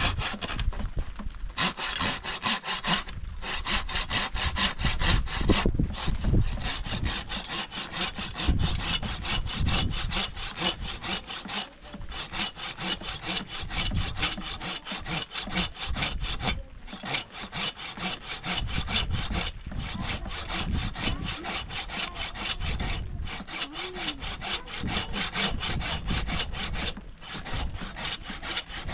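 Wood being sawn by hand: steady back-and-forth saw strokes, broken by brief pauses every few seconds.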